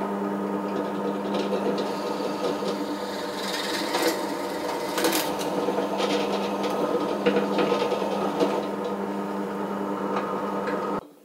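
SK11 SDP-300V 300 W benchtop drill press running steadily while its bit is fed into a wooden board, the motor's hum under the scraping of the bit cutting wood, with a few sharp ticks. The sound cuts off suddenly near the end.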